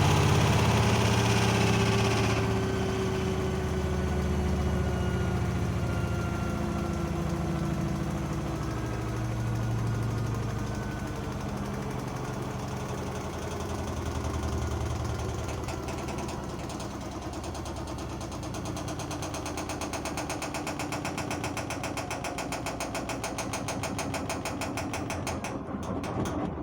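Blomberg washing machine's drum spinning with a loud low rumble, then winding down: a whine falls steadily in pitch and the sound turns to a fast, even pulsing before it stops near the end. The noise is the abnormally loud spin that the owner reported as a fault under warranty.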